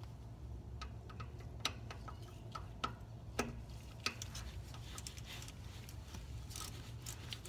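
Faint, irregular metal clicks and taps from a socket ratchet and bolts as the CV joint bolts are run in to the wheel-side flange, a few sharper clicks between about one and four seconds in. A steady low hum runs underneath.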